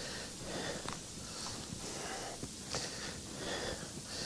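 Steady hiss of sleet coming down hard, with a person sniffing and breathing close to the microphone a few times.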